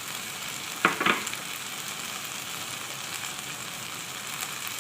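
Rice sautéing in ghee and oil with liver, gizzards, onion and peppers in a pot, a steady frying sizzle. A brief louder sound cuts in about a second in.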